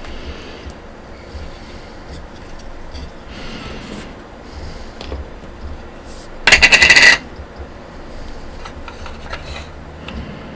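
Hard plastic Nendoroid parts and a clear plastic stand handled and fitted together: light clicks and rubbing, with one loud, rapid rattling scrape of plastic lasting about half a second, about six and a half seconds in.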